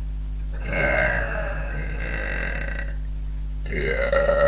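Two long, deliberate burps from a girl: the first starts about half a second in and lasts over two seconds, the second begins near the end, rising in pitch and then holding steady.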